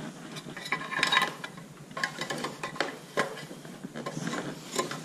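Irregular clinks, knocks and scrapes of a stainless steel sheet-metal tap box and its hinged lid being handled and fitted against the wall, with a brief metallic ring about a second in.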